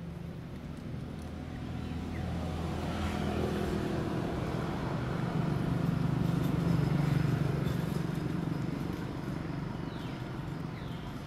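A motor vehicle's engine hum passing by, growing louder to a peak about six to seven seconds in and then fading away.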